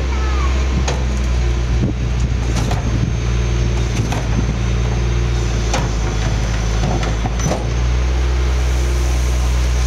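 Rear-loading garbage truck's engine idling steadily with a low hum, while bins and boxes knock and clatter as they are emptied into the rear hopper.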